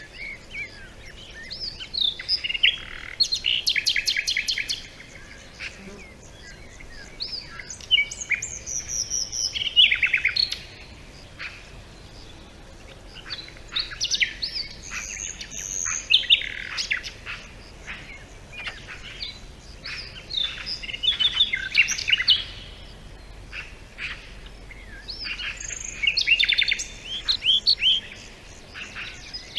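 Several songbirds singing, with overlapping phrases of chirps, trills and quick whistled notes coming every few seconds with short pauses between.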